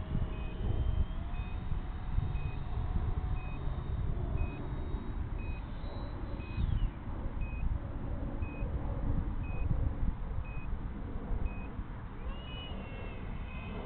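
Wind buffeting the microphone over the distant whine of a 70 mm electric ducted fan RC jet, its pitch rising and falling as it flies past, climbing near the end. A faint short beep repeats about once a second.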